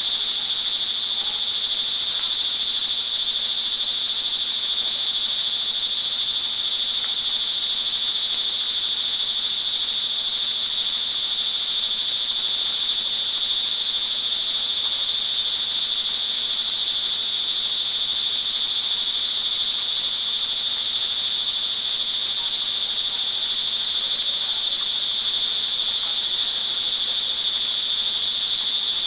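A dense chorus of crickets trilling without a break: a steady, high-pitched buzz.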